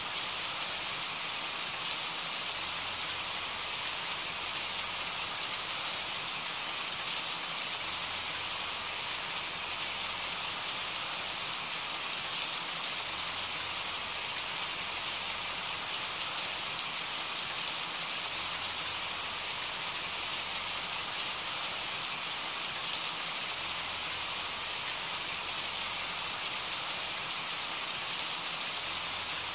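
Steady rain falling, an even hiss of rain with no change in level.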